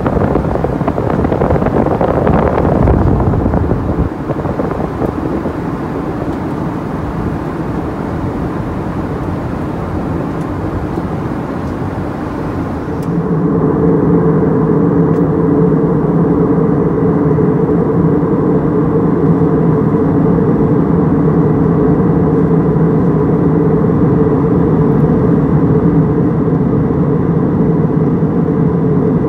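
Airbus A320 cabin noise in flight: a steady rush of airflow and engine noise, louder in the first few seconds. About halfway through, the sound changes abruptly to a steadier drone with several held low humming tones from the CFM56 engines, heard at a window seat over the wing.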